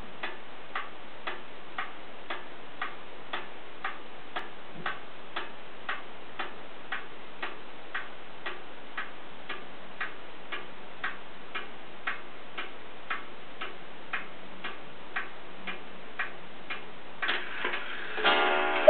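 Antique Black Forest cuckoo clock ticking steadily, about two ticks a second. Near the end a louder whirring from the works sets in as the clock begins its hourly cuckoo.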